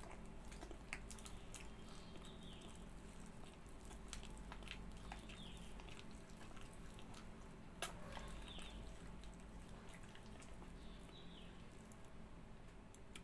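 Wet sucking and smacking mouth sounds, many small clicks, as the fibrous orange pulp of a ripe palmyra palm (tala) fruit is sucked and chewed. There is a sharper click about eight seconds in. A faint short falling chirp recurs every two to three seconds.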